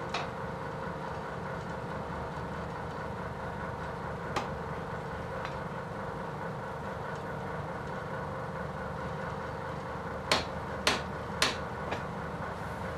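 Blacksmith's hammer striking a red-hot iron bar on a steel workbench: three sharp blows about half a second apart near the end, then a lighter tap, with single knocks at the start and about four seconds in. A steady mechanical hum runs underneath.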